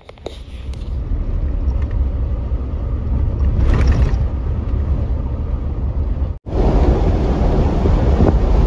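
Strong wind buffeting the microphone: a loud, uneven low rumble that builds over the first second or two, drops out for an instant about six seconds in, then goes on as loud.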